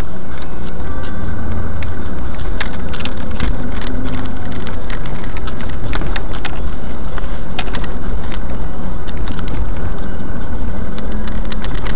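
A car driving with its engine running steadily, loud and close, with many scattered clicks and knocks over the rumble.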